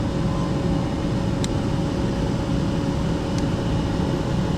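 Furnace ECM blower motor running steadily, a constant rush of air with a steady hum. Two faint light clicks, about a second and a half in and near the end.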